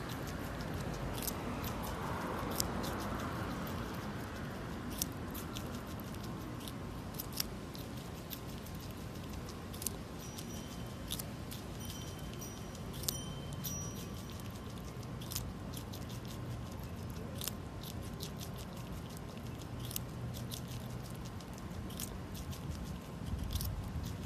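A squirrel gnawing and crunching on a raw carrot: irregular sharp bites and crisp crunches, a few a second at most, with short pauses between them, over a steady low rumble.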